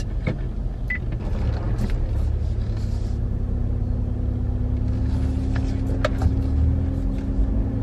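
Car engine running and low road rumble heard from inside the cabin. A steady low drone comes in about three seconds in and holds, with a few faint small clicks.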